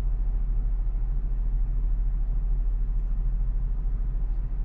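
Steady low hum of the 2023 Hyundai Palisade's engine idling, heard from inside the cabin.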